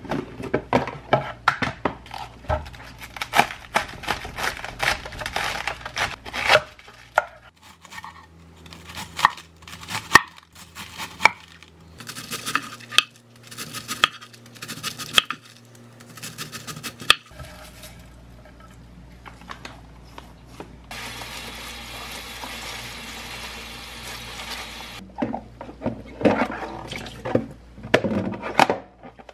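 Plastic storage box being handled with rattling clicks, then a kitchen knife slicing through a cabbage and knocking on a wooden cutting board in separate strokes. Past the middle a tap runs steadily for about four seconds, followed by clatter of a plastic colander and box in a steel sink.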